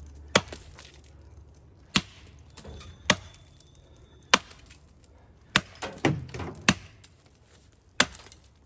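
Axe chopping into the trunk of a standing tree: about eight sharp blows, roughly one a second, cutting the felling notch.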